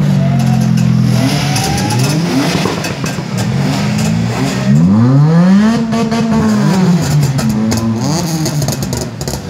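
Car engines revving up and down again and again, several rises and falls in pitch overlapping one another. The biggest rev swells and falls away about halfway through.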